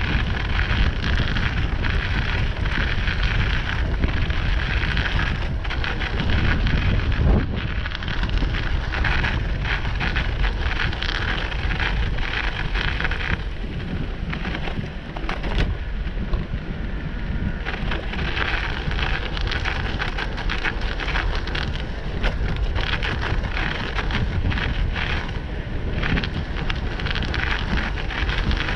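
Tyres crackling and crunching steadily over a thin layer of snow on a paved path, with wind rumbling on the microphone. The crackle eases off briefly about halfway through.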